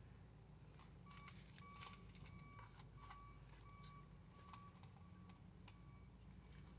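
Faint, short electronic beeps at one pitch repeating roughly every half second, with a few light clicks, over a low steady hum.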